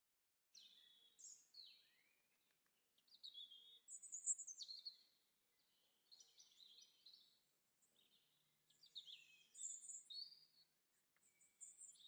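Faint birdsong from small garden songbirds: high, quick chirping phrases in about five bursts with short pauses between them.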